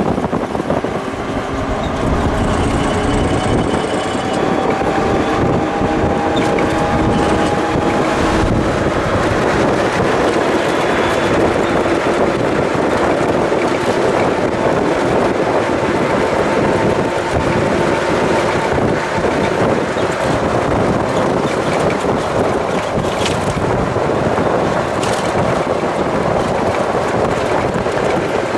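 Helicopter running, a loud steady drone with faint engine tones that drift slowly in pitch.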